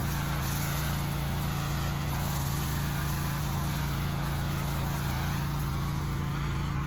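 Pressure washer running steadily: a constant motor hum under the hiss of high-pressure water spraying on the driveway.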